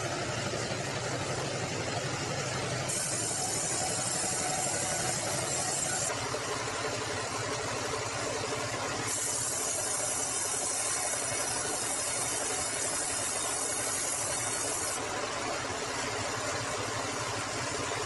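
Sawmill band saw and its drive engine running steadily while sawing bengkirai hardwood logs. A high hiss joins in twice, from about three to six seconds and again from about nine to fifteen seconds.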